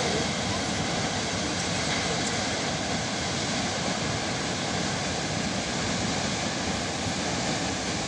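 Steady rushing noise of a tall waterfall, falling water pouring into a gorge. It is an even, unchanging noise.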